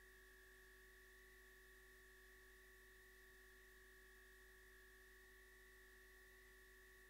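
Near silence: a faint, steady electrical hum and hiss, the recording's own noise floor.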